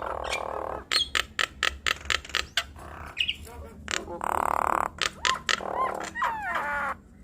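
Nias hill mynas calling in a duet: rapid sharp clicks, harsh rasping calls and loud whistled glides, stopping shortly before the end.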